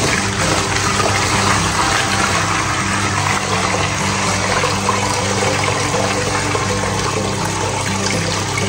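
Water pouring steadily into a plastic tub.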